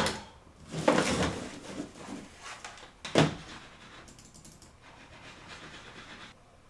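Handling noises of objects being moved and set down. There is a knock at the start, a cluster of knocks and rustling about a second in, and a sharp knock about three seconds in, over a faint steady hiss that cuts out near the end.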